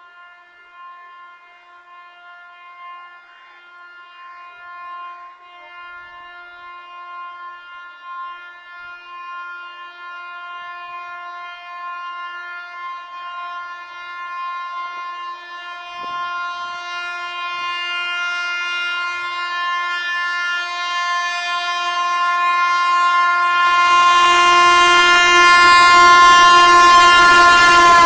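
An Indian Railways electric locomotive's horn is held in one long steady blast as the train approaches at high speed, growing steadily louder. About four seconds before the end, the rush of the train at speed joins in, and right at the end the horn's pitch drops as the locomotive passes.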